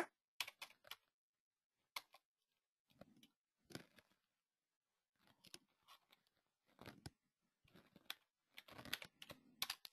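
Near silence with faint, irregular computer-keyboard keystrokes as a number is typed, a little denser near the end.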